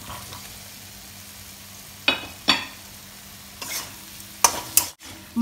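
Low sizzle of masala frying in a metal kadai. From about two seconds in, a metal spatula stirs the added mushrooms through it, scraping and knocking against the pan a few times.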